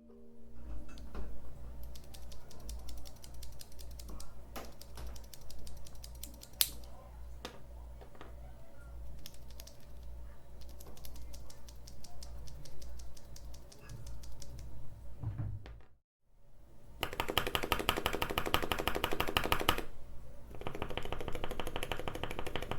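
Mechanical keyboard fitted with lubed Cherry MX Red linear switches being typed on: a steady run of keystrokes over a low hum. It cuts off about 16 s in, then comes back as two bursts of fast, dense typing.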